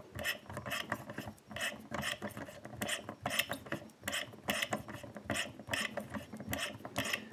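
Hand tap, the starting tap with the shallower cuts, cutting a thread into a pin chamber of a brass euro cylinder lock plug: an irregular series of short scraping clicks as the tap is turned in small strokes and bites into the metal.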